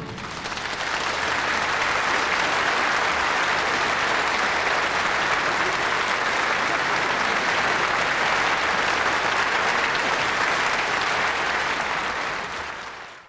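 Large concert audience applauding, a dense even clapping that swells in over the first second, holds steady and fades out near the end.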